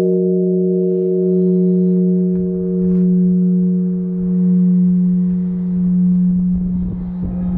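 Large bronze Japanese temple bell (bonshō) ringing on after being struck with a swinging log: a low steady hum with higher overtones that die away about six seconds in, the tone swelling and ebbing about every second and a half.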